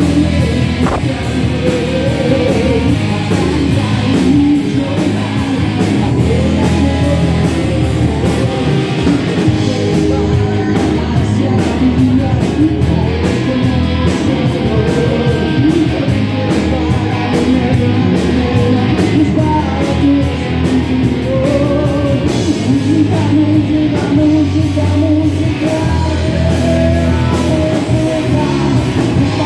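Rock song playing: a band with guitar, drums and a singing voice, at a steady loud level throughout.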